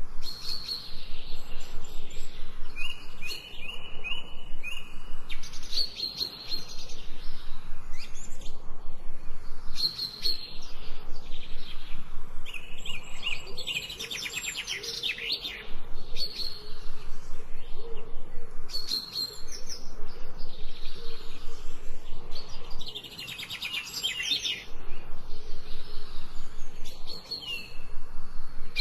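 Birds chirping and trilling in repeated bursts over a steady soft hiss.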